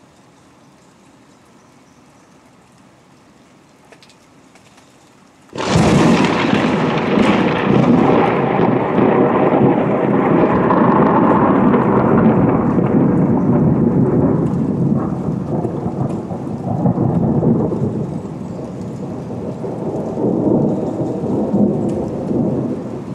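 Thunder from a close lightning strike: a sudden sharp crack about five and a half seconds in, then a long rolling rumble that swells and eases several times and fades near the end. Faint rain hiss before the crack.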